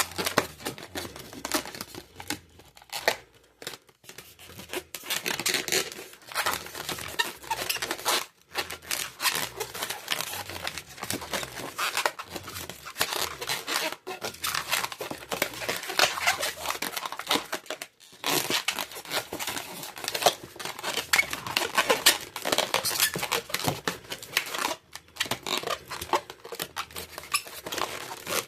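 Latex modelling balloons rubbed and twisted by hand, giving a dense run of small crackles with a few brief pauses.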